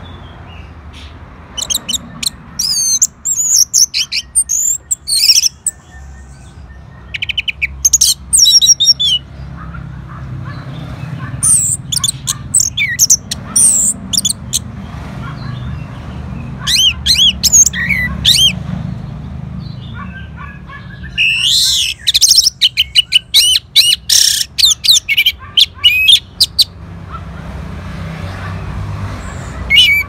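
Orange-headed thrush singing: quick, varied phrases of high, fast trills and whistles in about six bouts of one to five seconds each, with short pauses between them, over a steady low hum.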